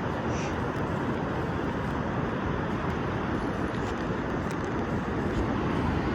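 Steady outdoor rush of wind buffeting the microphone over breaking surf, a dense low rumble without pauses.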